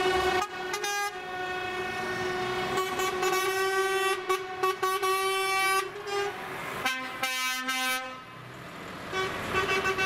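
Truck air horns sounding: one long held horn note for about five seconds, then a shorter, lower-pitched blast about seven seconds in, with more horn sounds near the end.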